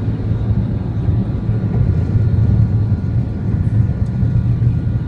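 Steady low rumble inside the cabin of an Airbus A330-300 airliner in flight: engine and airflow noise heard from a window seat.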